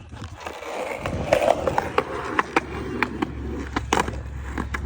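Skateboard rolling along pavement, the wheels giving a steady rolling rumble with scattered clicks, and a loud clack of the board about four seconds in.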